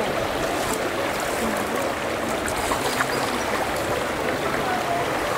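Steady rushing of shallow thermal spring water running over travertine terraces, mixed with wind on the microphone.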